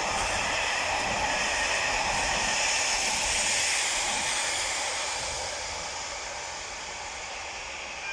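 Electric-hauled passenger train running away down the line: a steady rushing noise of wheels on rail that fades gradually from about halfway through as the train recedes.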